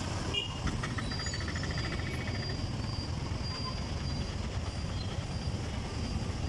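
Steady low rumble of road traffic and the moving vehicle carrying the recorder, with a short run of rapid faint high ticking about a second in.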